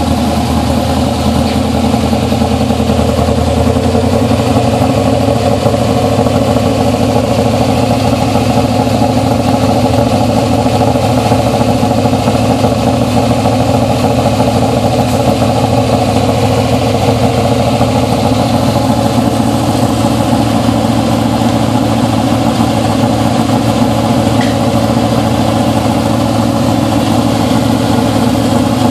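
Shelby Cobra race car's Ford V8 idling steadily, heard close to its exhaust pipe.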